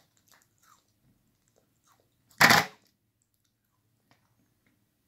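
A single loud, short crunch of a Lotus caramelised biscuit about halfway through, with only a few faint small clicks around it.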